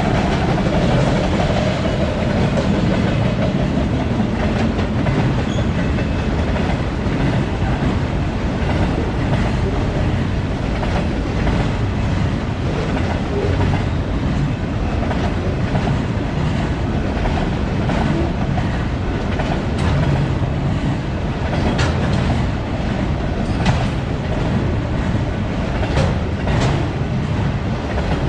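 Freight train autorack cars rolling past: a steady rumble of steel wheels on rail, with several sharp clacks in the last few seconds as wheels cross rail joints.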